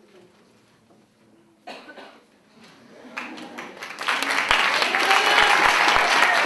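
Audience applause starting after a quiet pause, swelling from about three seconds in to steady, full clapping by about four seconds in.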